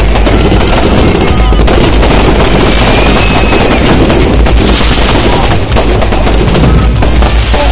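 Fireworks going off in a dense, rapid barrage: a continuous loud crackle of bangs from aerial bursts, like machine-gun fire.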